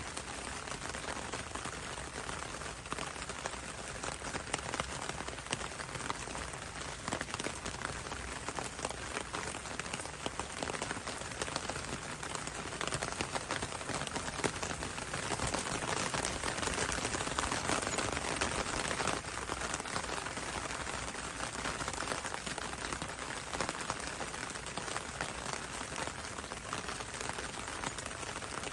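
Steady rain falling on leaves: a dense patter of many separate drops, a little heavier about halfway through.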